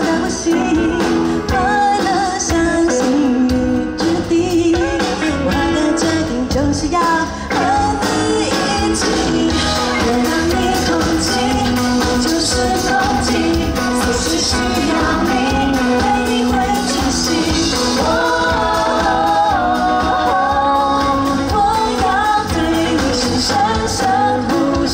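A pop-rock song performed live, with a lead vocalist singing over a full band of guitar, bass and drums.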